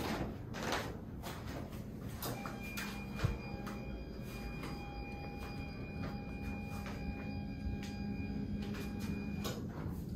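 Rustling and light handling noises, with a steady whining tone that starts about two seconds in and cuts off suddenly near the end.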